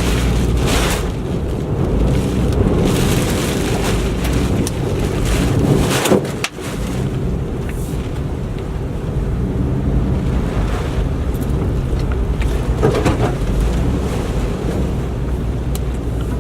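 Hurricane-force wind blowing hard and buffeting the microphone, with rain, rising and falling in gusts. The sound briefly drops out about six and a half seconds in.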